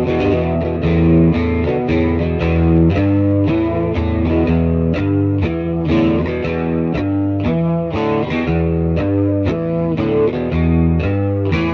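Instrumental music: a guitar riff of short, changing notes over a strong low bass line.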